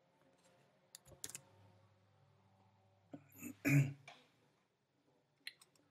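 Faint computer keyboard keystroke clicks, a few about a second in and again near the end, with a short throat noise from the person at the keyboard about two-thirds of the way through.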